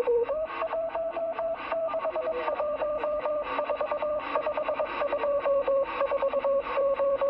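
Morse code (CW) received over a CB radio: a single steady tone keyed on and off in fast dots and dashes over a hiss of band noise, its pitch stepping up slightly about half a second in.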